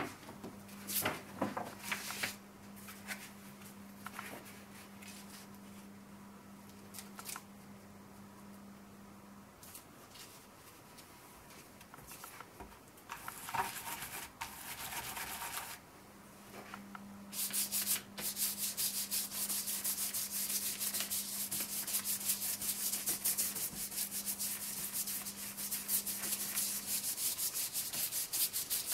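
Stiff round stencil brush dabbed rapidly and evenly onto a stencil, a fast scratchy patter taking up the second half. Before that, the brush is worked in the paint tray and the stencil is handled, giving scattered taps and rustles.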